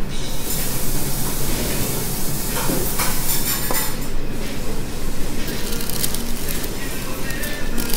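Steady hissing background noise of a ramen shop, with a couple of light knocks as a water glass is moved on the wooden counter.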